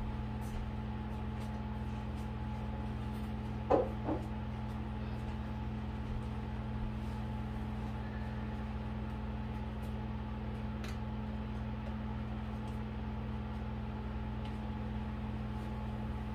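A steady low hum, with two sharp knocks about four seconds in as toiletries and bottles are picked up and set down on a bathroom counter, and a few faint ticks.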